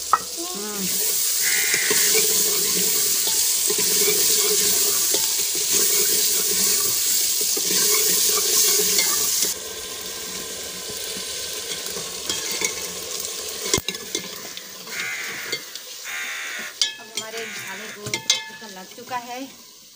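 Potato cubes sizzling in hot ghee and masala in an aluminium pot over a wood fire, stirred with a steel ladle. A loud, even sizzle drops off suddenly about halfway through, then goes on quieter with ladle scrapes and one sharp knock.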